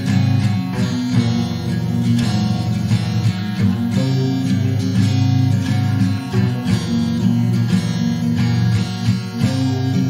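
Instrumental background music: a steady run of plucked notes over sustained low notes.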